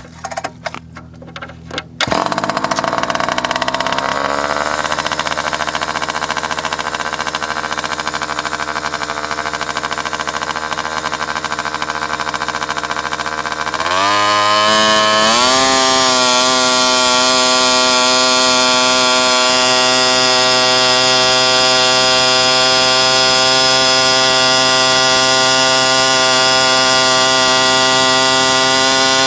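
An engine held at high revs, running loud and steady. About 14 seconds in it climbs in pitch and holds at a higher speed.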